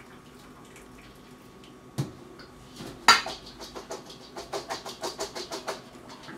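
Stainless steel colander of drained green beans clanking against the sink: a knock, then a loud clank about a second later, then a quick run of rattling knocks as it is shaken.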